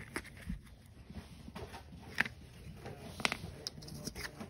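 Baseball trading cards being handled and laid down onto piles on a wooden floor: a few short, soft taps and card rustles, the sharpest about two seconds in and again just after three seconds.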